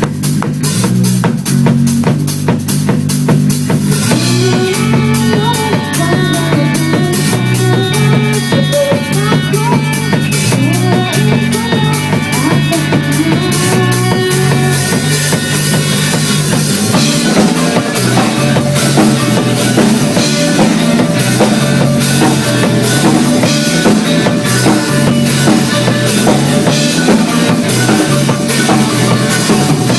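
Rock music with a steady drum-kit beat, bass and guitar; a melody line comes in about four seconds in.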